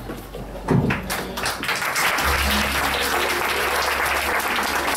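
Audience applauding, the clapping swelling in over the first two seconds and then holding steady. A short low thud just before it is the loudest moment, and a low steady hum runs underneath from about two seconds in.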